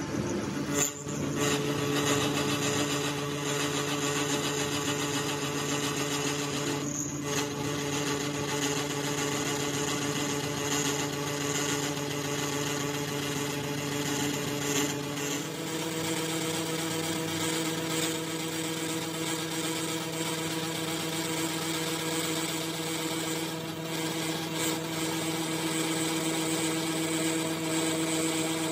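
A machine tool's electric motor running steadily with an even hum and a noisy cutting layer over it; about halfway through the pitch steps up a little as the speed changes.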